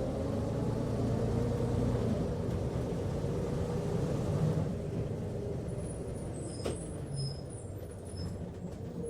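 Interior of a running bus: a steady low engine and road rumble with a whine that slides in pitch during the first couple of seconds. After about five seconds it grows quieter, with a sharp click and a few brief high squeaks near the end.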